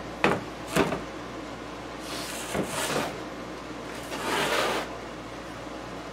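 Two sharp knocks as the wooden turntable cabinet is handled and set down, then two stretches of scraping as it is slid across the work surface.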